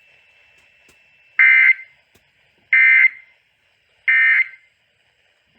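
Emergency Alert System end-of-message data signal: three short bursts of warbling digital tones, each about a third of a second long and about a second apart, marking the end of the broadcast warning.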